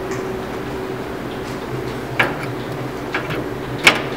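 A USB cable being handled and plugged into a port inside a photo booth cabinet: a few light clicks and knocks of the plug and cable, the sharpest near the end, over a steady low hum.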